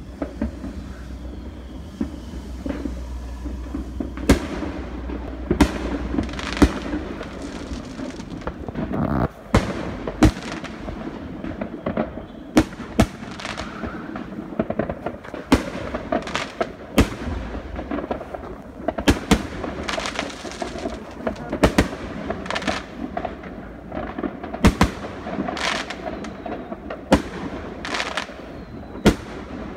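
Fireworks exploding: sharp bangs at irregular intervals, roughly one a second from about four seconds in, over a steady background noise.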